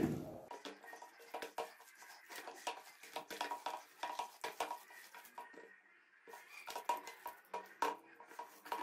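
Hands mixing a raw chicken mince mixture in a stainless steel bowl: faint, irregular taps and scrapes of fingers against the steel, each ringing briefly.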